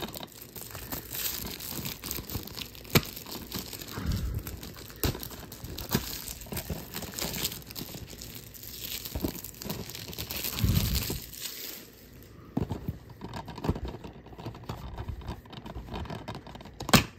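Thin plastic shrink-wrap crinkling and tearing as it is handled on a DVD case. Over the last few seconds the crinkle gives way to separate light clicks and knocks of the hard plastic case being handled.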